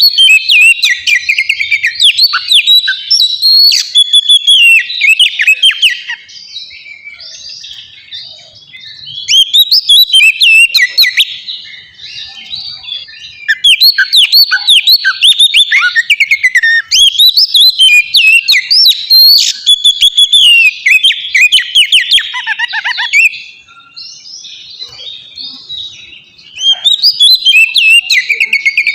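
Oriental magpie-robin in full, continuous song: loud phrases of rapid, varied whistles and chirps lasting a few seconds each, broken by short quieter pauses.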